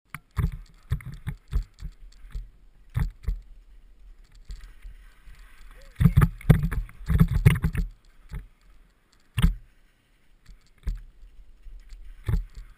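Mountain bike rattling and knocking as it rolls over a rough, snow-patched dirt road: irregular clunks and jangles from the frame and chain, with a run of heavier bumps a little past halfway and one sharp knock later on. Heard through a GoPro Hero2 action camera.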